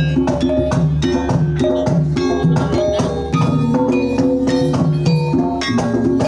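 Javanese gamelan ensemble playing a Banyumasan uyon-uyon piece: keyed percussion struck with mallets ringing out steady pitched notes over regular kendang drum strokes, with the bronze gong in the ensemble.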